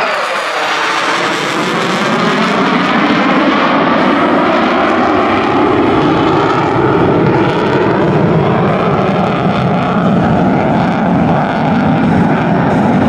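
USAF F-35A's single Pratt & Whitney F135 afterburning turbofan at high power in afterburner, a loud, steady jet rumble. A sweeping, swishing shift in tone in the first two seconds comes as the jet passes.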